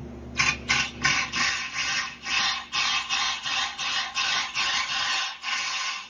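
Compressed-air blow gun fired down the solution tank's outlet hole of a ride-on floor scrubber in rapid taps, about three short hissing blasts a second, starting about half a second in. It is blowing debris out of the solution line toward the water-flow solenoid to restore a low or blocked water flow.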